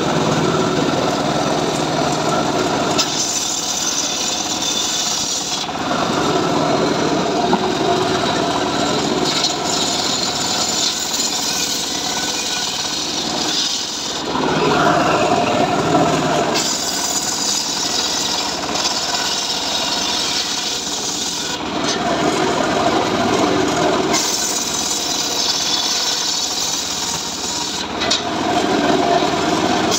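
A homemade table circular saw rips trembesi (rain tree) planks lengthwise. It runs steadily throughout and grows louder each time a board is pushed into the blade, in several passes.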